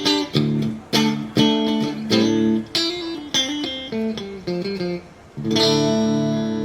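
PRS SE Custom 22 semi-hollow electric guitar played through a Mesa/Boogie Triple Crown TC-50 valve amp head: a run of short struck chords and picked figures, then a chord struck about five and a half seconds in and left to ring out.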